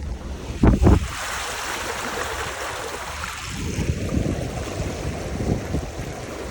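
Vehicle driving through standing floodwater: water splashing and hissing around the tyres, with two heavy thumps about a second in and a churning rumble in the second half.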